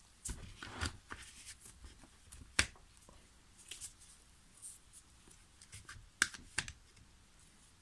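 Scattered light clicks and knocks of plastic parts being handled as the round air filter is fitted by hand onto a Stihl MS 391 chainsaw's carburettor; the sharpest knocks come about two and a half seconds in and just after six seconds.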